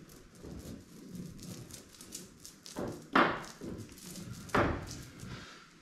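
Small foam roller spreading gelcoat onto a boat hull in quick back-and-forth strokes, with two louder strokes about three and four and a half seconds in.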